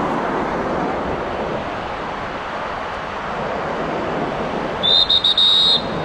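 Lifeguard's whistle blown in a few quick, shrill blasts near the end, signalling swimmers to come in from the water as lightning nears, over a steady wash of surf and wind.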